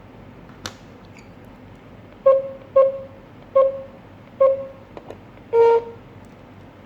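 GSM alarm control panel beeping: four short, identical beeps in quick succession, then a longer, slightly lower beep, with a single click shortly before them.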